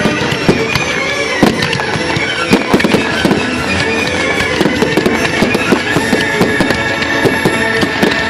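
Fireworks going off in a rapid, irregular string of sharp bangs and crackles, several a second, over loud music.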